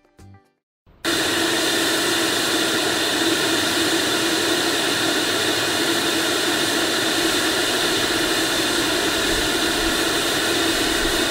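Steady test noise signal played through a single TOA CS-760 horn speaker, heard from about 20 metres away. It switches on abruptly about a second in and holds at a constant level.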